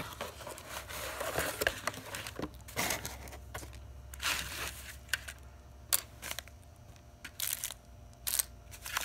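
Hands unpacking a small kit onto a wooden tabletop: a cardboard box shifted and emptied, plastic bags of sand rustling, and small plastic pieces knocking as they are set down, in scattered short clatters and rustles with brief pauses between.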